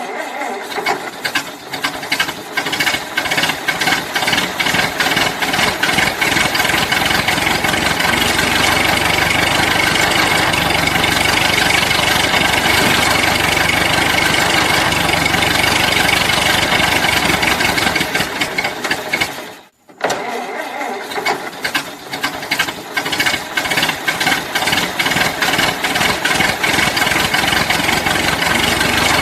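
Old car engine being cranked by its starter, turning over in a rapid even rhythm, then running rough and uneven. About two-thirds of the way through it cuts out suddenly. After a moment it is cranked again and turns over, then runs unevenly once more.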